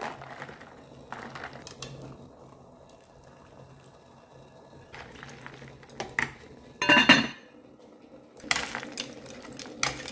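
Chopsticks stirring blanched water spinach through ice cubes and cold water in a plastic bowl: scattered clinks and knocks of ice and chopsticks with some sloshing of water, the loudest clatter about seven seconds in. It is the ice bath that stops the cooking and keeps the greens crisp.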